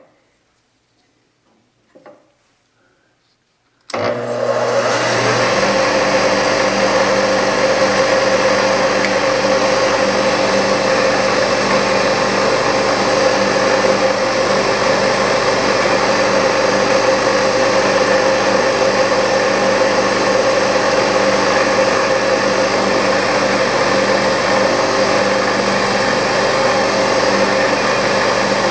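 A couple of faint clicks, then about four seconds in a milling machine's spindle starts. It spins up and runs steadily at its top speed of about 2950 rpm with a constant tone while a small drill bit cuts a through-hole in the piston blank.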